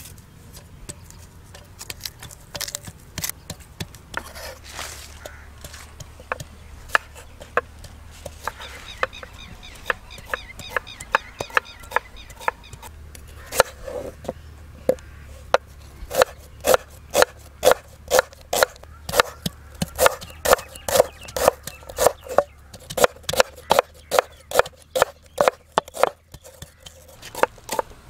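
Food-prep knocking: a few scattered knife knocks on a wooden cutting board as red onions are peeled and cut. From about halfway, a steady run of ringing strikes comes about twice a second as a wooden pestle pounds garlic and ginger into paste in a clay bowl.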